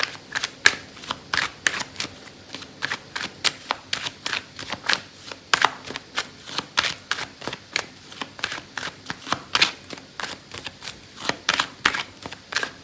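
A deck of oracle cards being shuffled by hand: a continuous, uneven run of sharp card snaps and flicks, about three or four a second.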